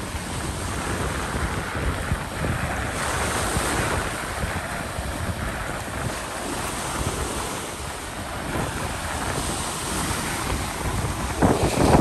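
Small waves breaking and washing up a gravel beach, swelling and easing, with wind buffeting the microphone that grows louder near the end.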